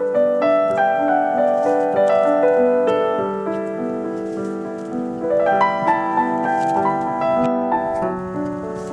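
Background piano music: a melody of held notes over a sustained low note.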